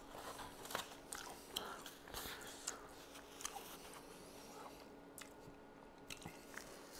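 Faint chewing and crunching of a man eating fried chicken wings, heard as small scattered clicks and mouth smacks.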